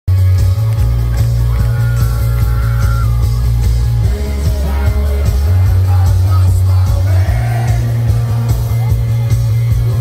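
Live rock band playing through a concert PA, heard from within the audience, with a heavy bass and singing over it.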